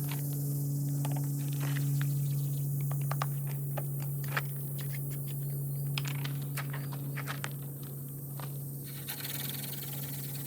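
Hand-drill spindle spun between the palms in a wooden hearth board to make a friction fire, giving irregular scraping and clicking strokes of wood on wood. A steady low hum runs underneath.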